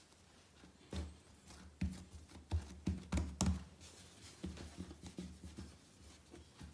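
Hands pressing and rolling a piece of bread dough against the bench to shape a roll, giving soft thumps and rubbing, most between one and four seconds in.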